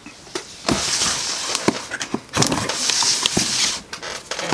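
A cardboard mailer box and its packaging being opened by hand: two long rustling stretches of about a second and a half each, with light knocks and taps between.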